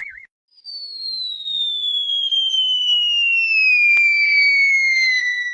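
Cartoon falling-whistle sound effect: one long, clean whistle gliding slowly and steadily downward for about five seconds, then cutting off. A short warbling tone ends just before it.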